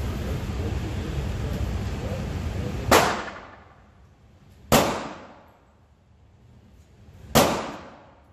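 Three pistol shots, single and spaced a couple of seconds apart, each with a short echoing decay, after a steady rushing noise that stops about three seconds in.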